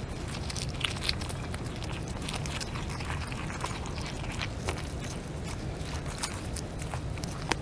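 North American beaver chewing leaves and twigs up close: irregular wet crunching and crackling clicks from its teeth, over a steady low rumble.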